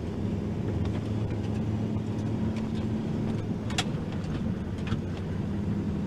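Engine idling steadily with a low, even hum, and one short click just under four seconds in.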